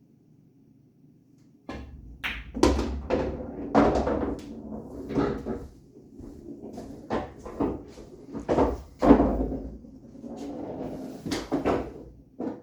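Pool balls knocking and clacking against each other and the table, with a low rolling rumble between the clacks. The clatter starts about two seconds in and runs in irregular bursts before it stops just before the end.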